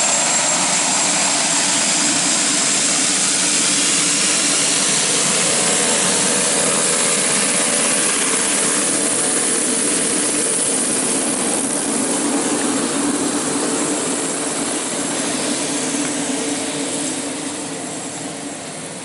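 Pilatus PC-12/47E single-engine turboprop running at high power, a loud steady engine and propeller noise with a high turbine whine, fading over the last few seconds.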